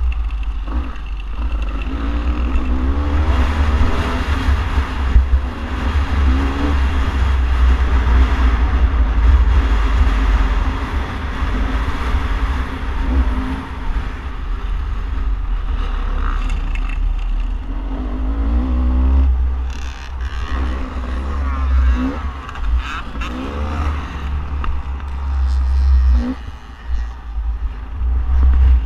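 Beta 300RR's single-cylinder two-stroke engine revving up and backing off again and again as the dirt bike is ridden, under a heavy wind rumble on the microphone.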